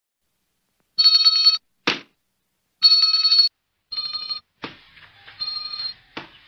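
Small hand bell rung in quick shakes: four short bursts of rapid ringing, the later ones fainter. There is a short thump after the first burst and a couple of clicks near the end.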